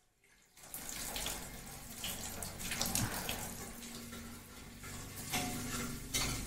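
Water running from a kitchen tap into the sink, starting about half a second in, with a few light knocks of pots or dishes.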